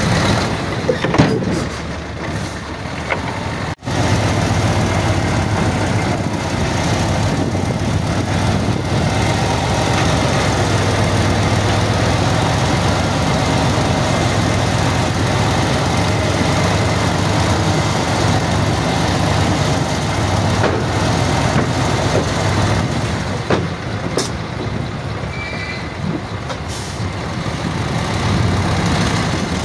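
Heavy diesel construction machinery running steadily, a loud low engine drone, with a sudden brief break about four seconds in and a few scattered knocks.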